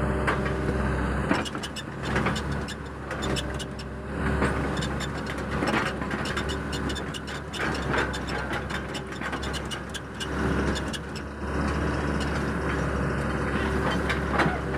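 Excavator's diesel engine running steadily while it works, with scattered knocks and clanks.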